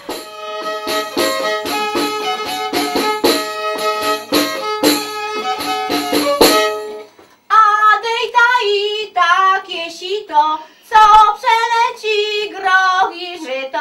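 A solo folk fiddle plays a fast tune in short, separate bow strokes for about seven seconds, then stops. After a brief pause, a woman starts singing a Polish folk wedding song unaccompanied, her voice wavering on the held notes.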